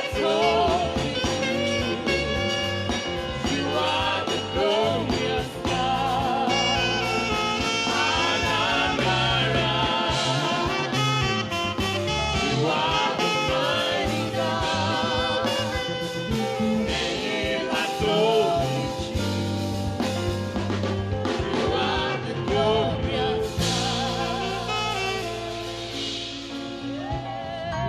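Gospel worship music led by a saxophone playing a melody with vibrato over a backing track with a steady bass line.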